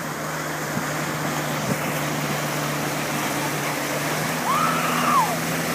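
Motorboat engine running steadily while towing, under the rush of water and wind from the wake. Near the end, a single short high-pitched shout rises and falls.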